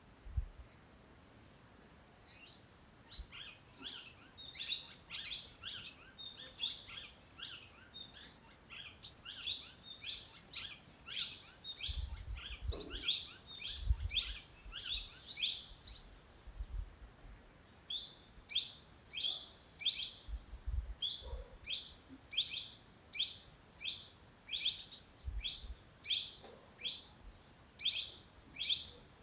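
Sunbird calling: a quick jumble of high, sharp chirps that settles about two-thirds of the way in into a steady run of single chirps, about one and a half a second.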